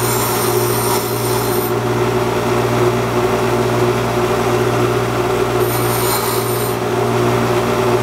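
6-inch bench grinder running with a steady motor hum while a machine screw held in a small hand knob is ground to length against the wheel: a high-pitched grinding for the first couple of seconds, and again for about a second later on.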